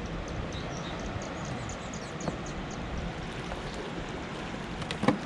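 Steady rush of turbulent water in a hydro dam's tailwater, with a short cluster of sharp clicks about five seconds in.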